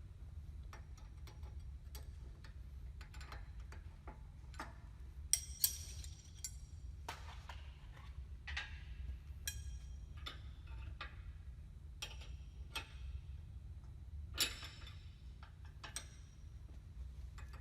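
Irregular sharp metallic clicks and clinks of a wrench working on hydraulic hose fittings as they are tightened, loudest as a close pair about five seconds in and once more near fourteen seconds, over a low steady hum.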